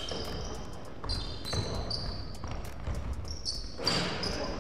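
Basketball game on a hardwood gym court: sneakers squeaking on the floor and the ball bouncing, with a louder stretch of noise near the end as a shot goes up.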